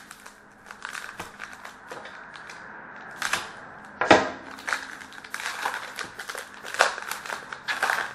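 Trading card pack wrapper being torn open and crinkled while the cards are handled, making a run of short crackles and rustles; the loudest crackle comes about four seconds in.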